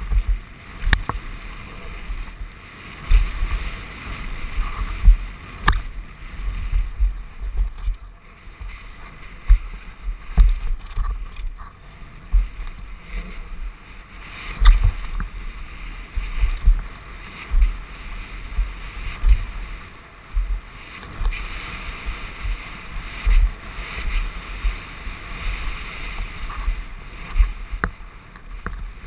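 Mountain bike descending a rough dirt trail: wind buffeting the helmet-mounted camera's microphone in uneven low gusts over tyre noise on the dirt, with a few sharp knocks and rattles from the bike over bumps.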